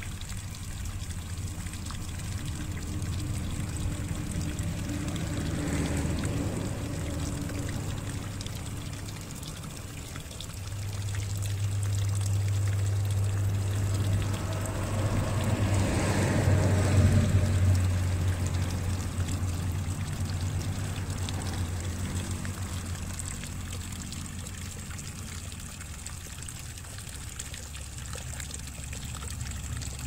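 Water pouring and trickling for a caged bird's bath, swelling to its loudest about halfway through and then easing, over a low steady hum.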